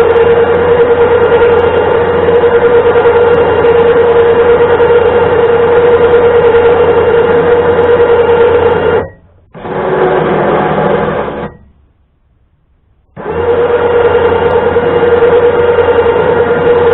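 A 2500-pound electric winch's motor running steadily, winding cable onto the drum. It stops about nine seconds in, runs again for about two seconds, pauses for over a second, then starts up again.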